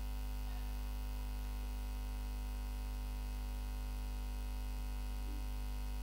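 Steady electrical mains hum with a faint hiss.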